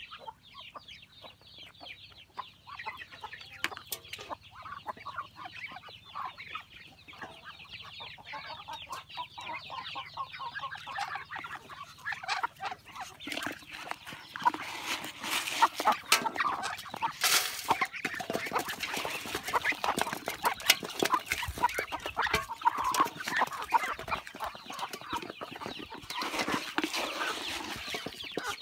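Chickens clucking, mixed with the quick pecking and rustling of ducks and chickens feeding on paddy rice in a bucket. It grows busier and louder about halfway through.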